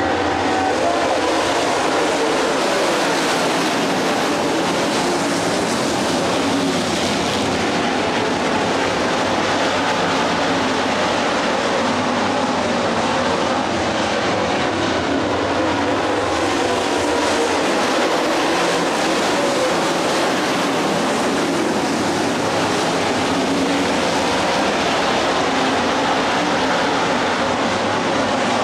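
A field of dirt late model race cars running laps on a dirt oval, their V8 engines a steady, loud drone whose pitch wavers up and down as the cars go around.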